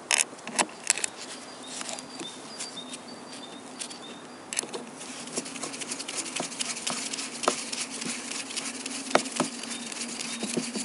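Cross-head screwdriver driving a screw into the aluminium cover of a Toyota VVT-i oil pump: small metallic clicks and scrapes, a few sharper ones in the first second, over a steady low hum.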